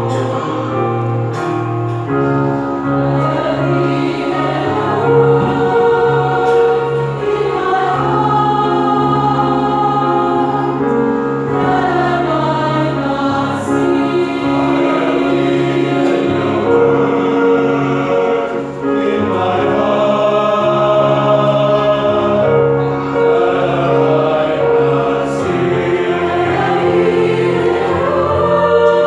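Mixed church choir of men's and women's voices singing a sacred anthem in parts, holding sustained chords that change every few seconds.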